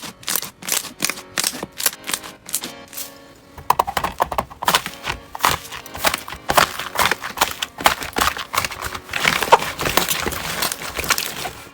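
Slime being pressed and worked by hand: sharp sticky clicks and pops, about three a second at first, turning into a denser, busier crackling about three and a half seconds in. Soft background music plays underneath.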